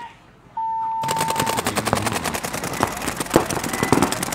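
Paintball markers firing in rapid strings of shots, many a second from several guns at once. It is preceded, about half a second in, by a steady electronic tone lasting about a second, like a start horn.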